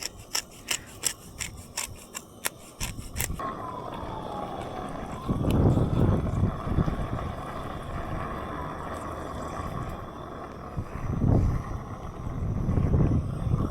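About a dozen sharp clicks, three or four a second, from a pepper grinder being twisted over frying fish. After about three seconds these give way to wind buffeting the microphone in gusts.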